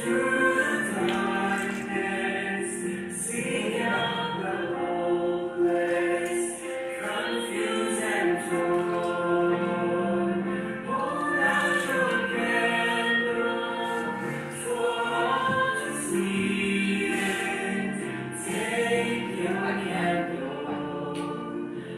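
A choir of several voices singing a hymn-like song.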